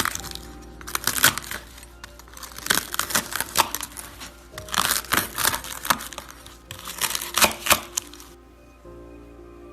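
Slime being squeezed and pressed by hand, giving several bursts of dense crackling and popping clicks, with background music underneath; near the end only the music remains.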